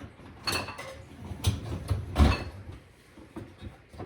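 Several clunks and clatters from a dishwasher's door and racks being handled, some with a brief ringing; the loudest comes just after two seconds in.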